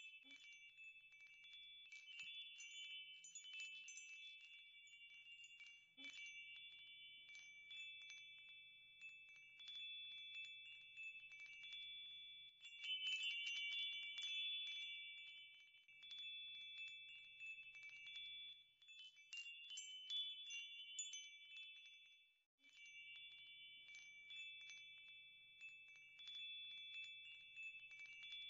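Wind chimes ringing faintly: many light strikes whose high tones ring on and overlap, with a brief break about two-thirds of the way through.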